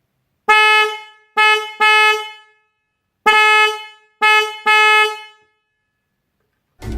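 Electric car horn sounded in two sets of three short blasts, each a steady tone that rings off briefly when released.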